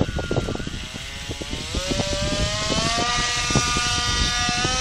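Radio-controlled model autogyro's motor and propeller whining, rising in pitch as it is throttled up at the hand launch and then holding a steady pitch as the model climbs away.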